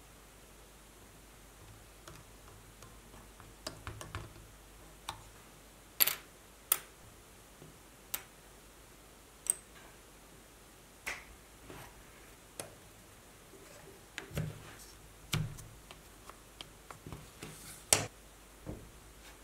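Thin wooden chopstick pieces clicking and tapping against each other and the tabletop as they are handled and fitted together: a dozen or so sharp clicks at irregular intervals, the loudest about six seconds in and near the end.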